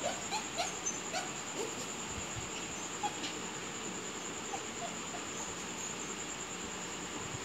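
Puppy whimpering in short, high, upward-sliding yelps, a quick run of about five in the first second and a half, then a few scattered ones.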